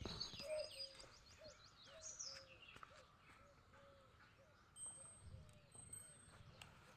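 Faint bird calls: a rapid run of high chirps in the first two seconds, over a short, lower note repeated about twice a second.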